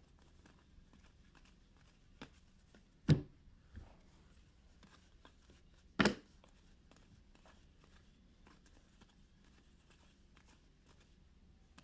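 Trading cards and packs being handled: faint rustling and small clicks, with two sharp knocks about three and six seconds in.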